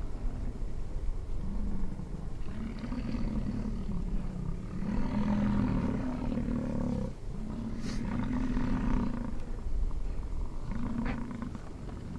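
American bison bulls bellowing: a series of long, low roars, each a second or two long, one after another with short gaps, typical of the summer rut.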